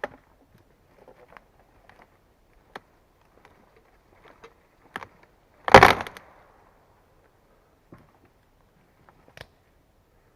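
Scattered light knocks and clicks, then one loud knock about six seconds in that rings on for about half a second.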